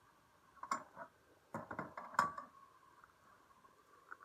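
Camp cookware knocking and clinking on a folding table: a couple of light knocks in the first second, then a quick cluster of clanks, the loudest a little past two seconds in with a brief ring.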